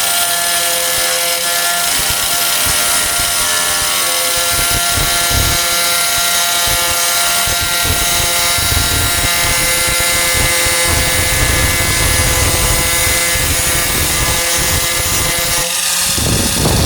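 A 4-1/2 in. electric angle grinder running at a steady whine while its disc grinds the rusted steel of a truck tailgate down to bare metal. A rougher grinding noise comes and goes through the middle as the disc bears on the metal.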